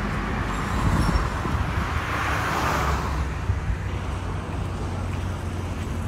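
Road traffic noise with a steady low rumble; a vehicle passes and swells loudest about two to three seconds in, then fades.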